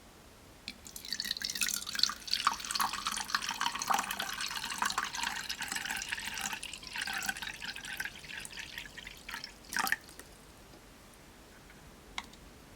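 Wet slime mixture being worked: a dense run of small dripping, crackling sounds that stops about ten seconds in, then a single faint click.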